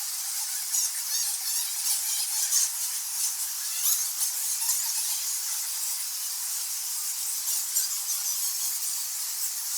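A large colony of bats squeaking and squawking: a dense, unbroken chorus of many overlapping high-pitched squeaks and chatter.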